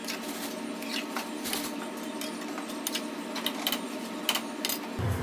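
A metal spoon stirring chicken and chickpeas in an aluminium pan, sped up: a rapid run of clinks and scrapes against the pan over a sizzling haze.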